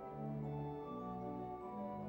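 Church pipe organ playing a piece in several voices. Held notes change every quarter to half second over lower bass notes.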